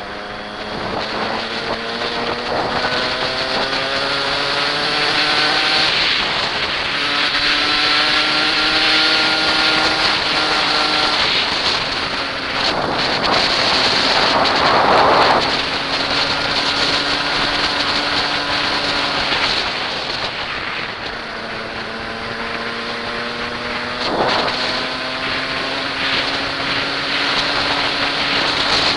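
Dirt bike engine under hard acceleration, its pitch climbing and dropping back as it shifts up through the gears several times. Wind rushes over the helmet-mounted microphone, loudest about halfway through.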